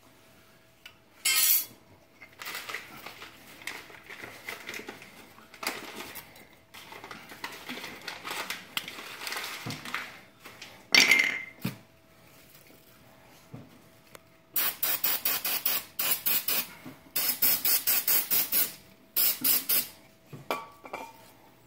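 Aerosol brake cleaner sprayed onto the metal brake backing plates, with a loud burst about a second in, a longer stretch of hiss, another burst, then a quick run of short spray bursts near the end. Metal parts clatter in between.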